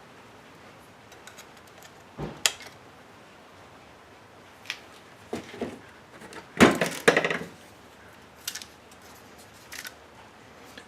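Scattered clicks, taps and clatter of small plastic and metal parts as a car radio head unit's faceplate, knobs and buttons are handled and pried apart, with a louder cluster of knocks about two-thirds of the way through.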